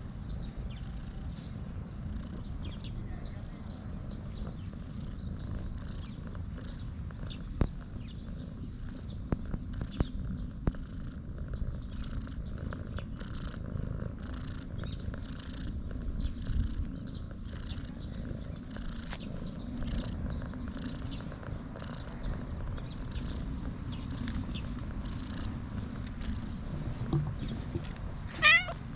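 Brown tabby-and-white cat purring steadily while being stroked, with a few scattered sharp ticks. A short high-pitched call comes near the end.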